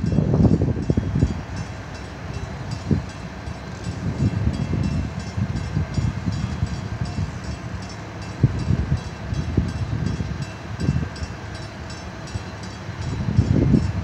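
Gusty wind buffeting the microphone: an uneven low rumble that swells near the start and again near the end, over a faint steady hum.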